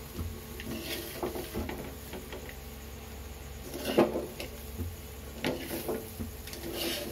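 A spoon scraping and knocking against a metal kadai while stirring bitter gourd fry. The strokes are uneven, and the loudest knock comes about four seconds in.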